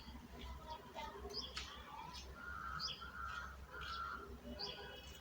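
Birds chirping: short high chirps with three held whistled notes in the middle, over a low steady hum.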